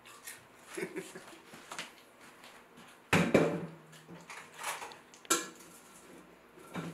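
Kitchen clatter: a few sharp knocks and clanks of metal utensils and pans, the loudest about three seconds in and again just past five seconds, with smaller taps between.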